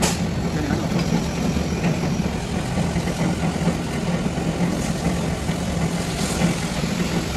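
Diesel engine idling steadily, a low even hum, with a short sharp knock right at the start.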